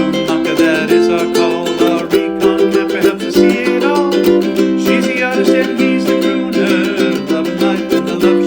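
Background music: bright strummed ukulele with a steady rhythm.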